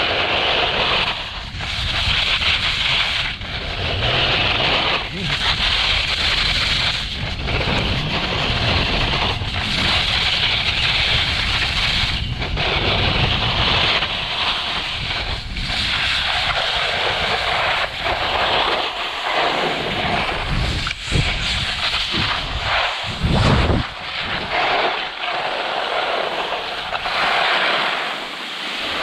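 Skiboard edges scraping and hissing across groomed snow in a series of turns, rising and falling with each turn, with wind buffeting the microphone underneath.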